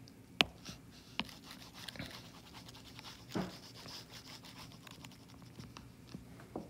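A stylus on a tablet screen: a few sharp taps and clicks and a soft scratchy rub while handwritten working is erased, over a faint low hum.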